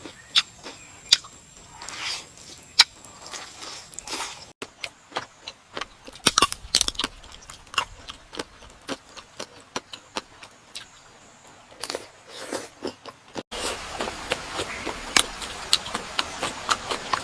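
Close-up eating sounds: irregular crunching and chewing of crispy fried food. The sound cuts abruptly twice, and after the second cut a steady hiss runs under the crunches.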